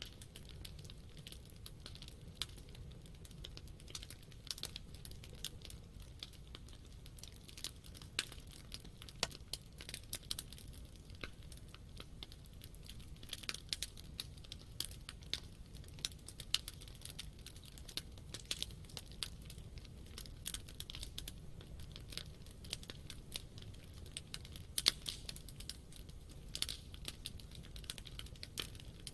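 Campfire burning, wood crackling and popping in a steady stream of sharp, irregular snaps over a low rumble of the flames.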